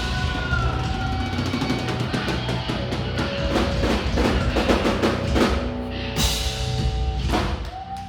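Live band playing the final bars of a progressive metal song: the drum kit plays a fast fill of rapid snare and kick hits over held guitar chords, with two heavy crash hits near the end.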